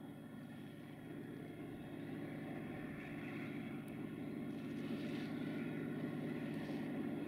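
GM class 64 diesel-electric locomotive approaching, its diesel engine drone growing steadily louder.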